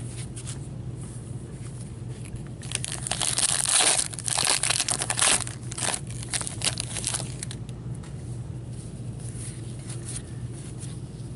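Foil wrapper of a hockey card pack being torn open and crinkled by hand. The crinkling starts about two and a half seconds in and is loudest for the next few seconds, then thins to a few lighter crackles.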